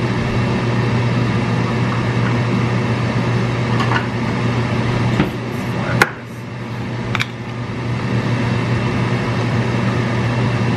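Electric fan running with a steady hum. Four short clicks and knocks of kitchen items being handled come between about four and seven seconds in, the sharpest about six seconds in.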